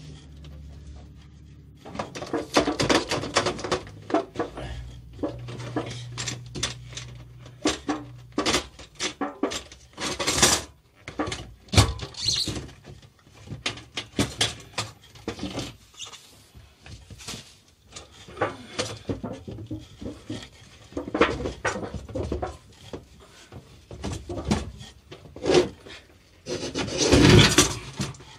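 Lid of a metal pail dust bin being unfastened and worked off, with many irregular metallic clanks, clicks and rattles. Near the end there is a longer, louder scraping rush as the pail is tilted and pulled out.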